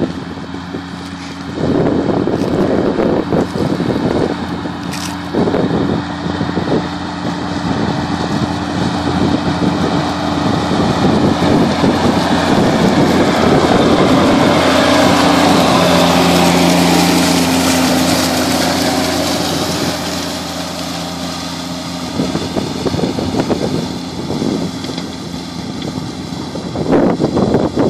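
2003 Fendt 712 Vario tractor's six-cylinder diesel running steadily under load while pulling a tillage tool. It grows louder as the tractor passes close by about halfway through, then fades as it pulls away.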